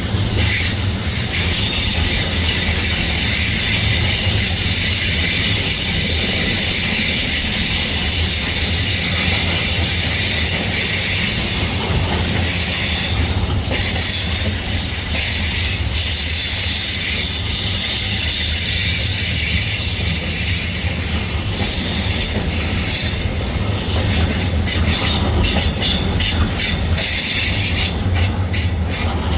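A train running past, with a steady low rumble and high-pitched wheel noise.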